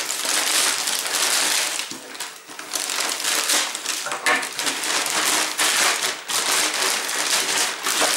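A plastic postal mailer bag being torn open and rummaged through by hand, with continuous crinkling and rustling of the bag's plastic and the plastic wrapping inside.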